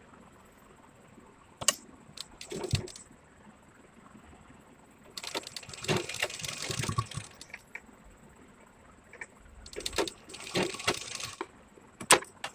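Domestic sewing machine stitching lace onto fabric in two short runs of rapid needle ticking, each about two seconds long, after a few clicks of fabric and presser foot being handled. Near the end come a few sharp snips of scissors.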